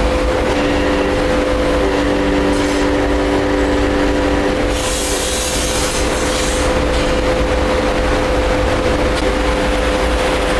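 Workshop machinery running steadily in a brass-pipe works, a loud hum with several held tones over a low rumble, and a burst of hiss from about five seconds in that lasts a second and a half.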